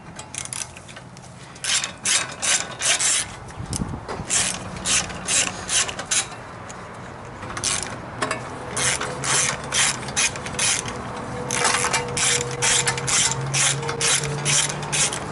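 Hand socket ratchet clicking in runs of quick back-and-forth strokes, about three clicks a second, with short pauses between runs, as 8 mm bolts holding a brake backing plate are undone.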